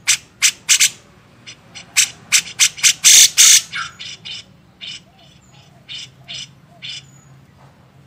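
Grey-cheeked bulbul (cucak jenggot) giving a rapid series of harsh, chattering calls, loudest and densest about three seconds in, then thinning to scattered single notes.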